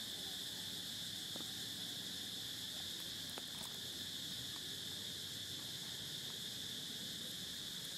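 Steady, high-pitched drone of insects, crickets or cicadas, with a few faint clicks.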